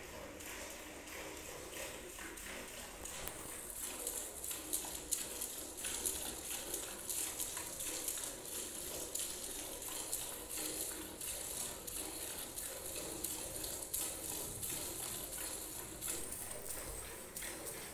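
Buffalo being milked by hand: streams of milk squirting into a steel bucket in a quick, steady rhythm, each pull a short hissing spurt.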